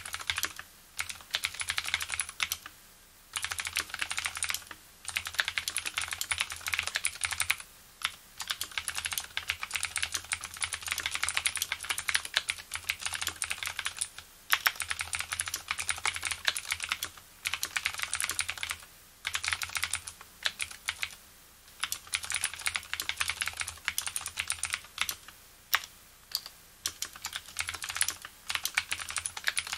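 Typing on a Leopold FC750R mechanical keyboard with clicky Cherry MX Blue switches, their springs freshly lubricated: a dense stream of sharp key clicks, broken by short pauses every few seconds.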